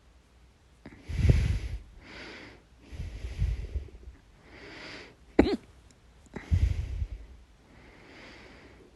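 A person hiccuping loudly, four hiccups about every one and a half to two seconds with breathing between them; the third is a short, sharp one with a squeak of voice in it.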